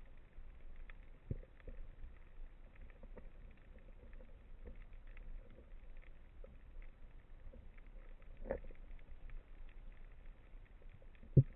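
Faint underwater ambience picked up by the speargun-mounted camera in its housing: scattered crackling and small clicks throughout. A few dull knocks stand out, the loudest near the end.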